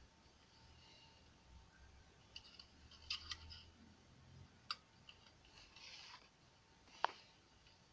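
Faint, scattered clicks and taps of small parts and wires being handled on an electronics workbench, about five in all, the sharpest one near the end; otherwise near silence with a faint low hum.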